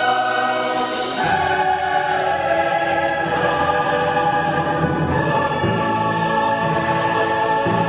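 Choral music with orchestra: voices holding long notes over sustained chords, with lower parts coming in about a second in.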